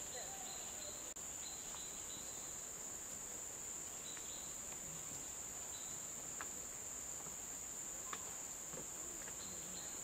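Steady high-pitched drone of a tropical forest insect chorus. A second, lower trill starts and stops several times, and there are a few faint clicks.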